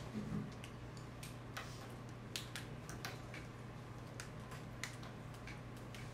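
Quiet classroom room tone: a steady low hum with about ten faint clicks and taps at uneven intervals.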